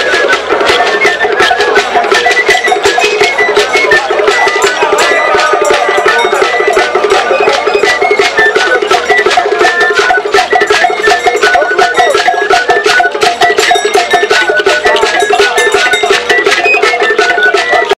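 Traditional Igbo masquerade music: fast, dense percussion with a cowbell-like metal beat and wood-block clicks over steady held notes.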